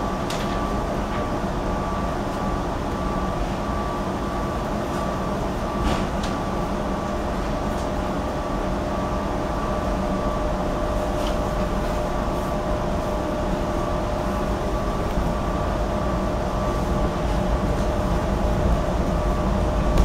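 Inside the cabin of a GE Silverliner IV electric railcar as it pulls away from a station stop: a steady electrical hum with a few whining tones over a low rumble. It grows a little louder near the end as the train picks up speed, with a few faint clicks along the way.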